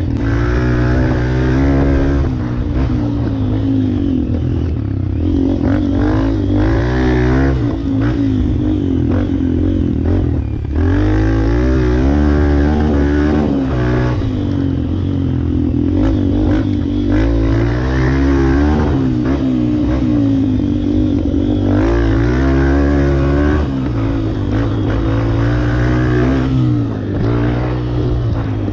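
Honda CRF250F's single-cylinder four-stroke engine revving up and down as the dirt bike is ridden on a dirt track. The pitch climbs and falls again every couple of seconds, with brief dips as the throttle is rolled off and gears change.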